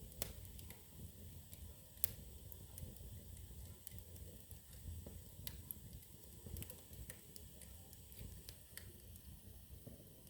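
Wood fire in a fireplace crackling, with scattered sharp pops and snaps over a low rumble of flames; the loudest pop comes about two seconds in.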